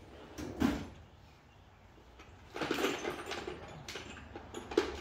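Handling noise from someone rummaging for a longer bolt among small parts: a knock about half a second in, then clattering and rustling with a few sharp clicks from about two and a half seconds in.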